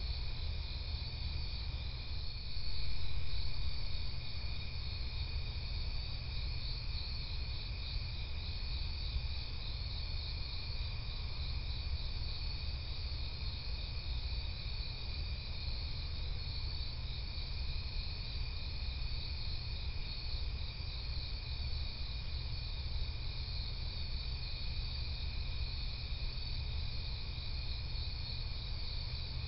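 Night chorus of crickets and other insects: a steady high trill with a second, higher pulsing chirr layered over it. A low rumble runs underneath, swelling briefly about three seconds in.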